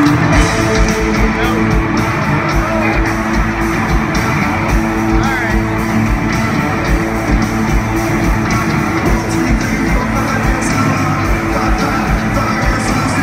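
Live rock band playing loud in an arena, with electric guitars and a steady drum beat, heard from among the audience.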